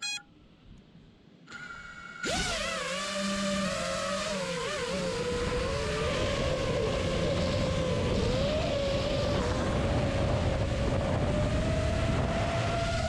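Brushless motors of an iFlight Nazgul5 HD FPV quadcopter spinning up about two seconds in, then a steady high whine whose pitch wavers with the throttle, over rushing air noise.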